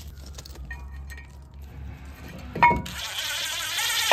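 Cordless DeWalt impact driver running in a brake rotor's hex retaining screw: after light metal handling and a sharp clank about two and a half seconds in, the motor spins up into a steady high buzzing whine.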